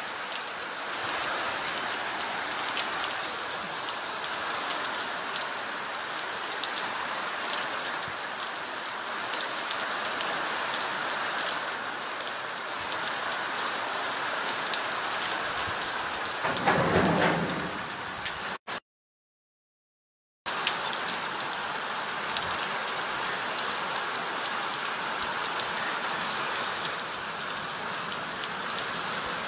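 Heavy rain falling on a flooded dirt street, a steady hiss. About two-thirds of the way in, a louder low rumble swells briefly. The sound then cuts out completely for about two seconds before the rain resumes.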